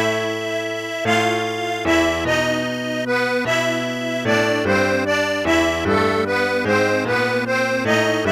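Music: a reedy, accordion-like instrument playing sustained chords that change about once a second.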